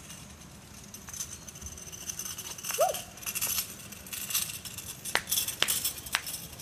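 Kick scooter's small plastic wheels rolling and rattling over asphalt, growing louder from about a second in as it nears, with a few sharp clicks near the end.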